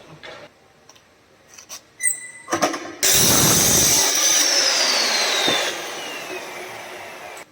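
Electric circular saw: a few clicks, then the saw running loud with a high whine about three seconds in. The whine falls in pitch and fades as the blade winds down, cutting off suddenly near the end.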